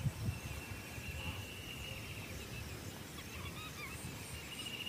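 Wild birds calling: repeated high chirps and trills, a run of them in the first half and another starting near the end, over a low steady rumble.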